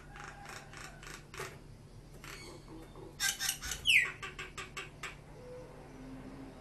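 A bird's harsh chattering calls: a run of rapid rasping notes, then after a pause a louder bout with a quick falling whistle in the middle.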